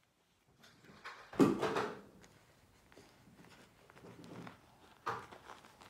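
Rustling and crinkling of a disposable diaper being handled and fastened on a baby monkey. A brief loud sound comes about a second and a half in, and another sudden one near the end.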